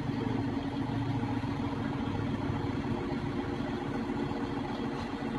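Crane truck's engine running steadily.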